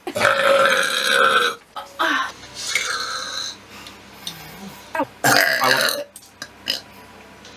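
A young woman belching: one long, loud burp of about a second and a half right at the start, then shorter sounds, and another loud burp-like sound about five seconds in.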